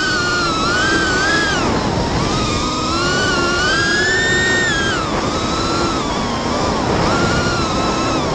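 FPV racing quadcopter's T-Motor F40 Pro 2600kv brushless motors with four-blade props whining, the pitch rising and falling smoothly with the throttle, over a steady rush of wind and prop noise.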